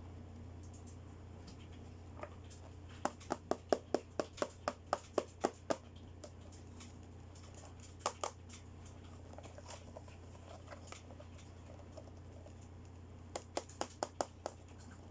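Runs of small, sharp plastic clicks, about four a second, from hands working small toy accessories. About a dozen come a few seconds in, a pair around the middle, and a short run near the end, all over a steady low hum.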